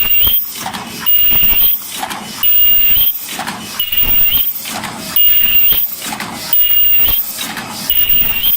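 Open-cam paper cup making machine running, forming 16 oz double-PE paper cups. It runs in a steady rhythmic cycle about every second and a half, each cycle a loud, high-pitched whine that rises at its end, with mechanical clacks between.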